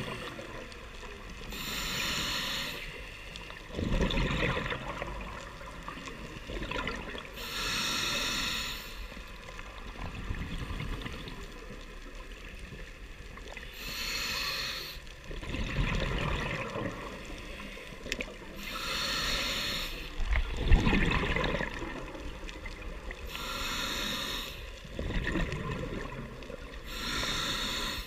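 Scuba diver breathing through a regulator: a hissing inhalation about every five to six seconds, six in all, each followed by a rumbling burst of exhaled bubbles.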